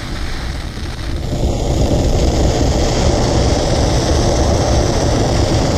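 Steam venting from the exhaust vent on the lid of a Carey electric smart canner: a steady rushing hiss with a low rumble that grows louder over the first second or two. The canner has come up to heat and is venting before its valve is turned to airtight.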